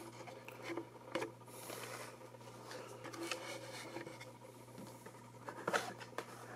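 Faint scratching and a few light clicks as a knife cuts open a cardboard product box, with one louder scrape near the end, over a steady low hum.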